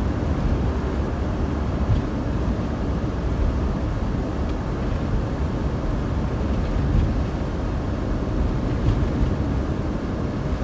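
Vehicle driving along: a steady low rumble of engine and road noise.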